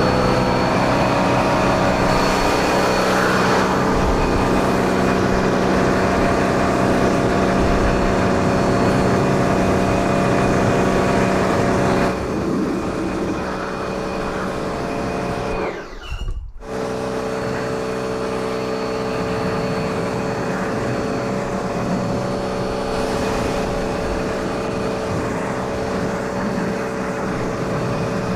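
Bosch electric high-pressure washer running, its motor humming steadily under the hiss of spraying water. The sound shifts a little about twelve seconds in, and cuts out sharply for about a second near the middle before carrying on.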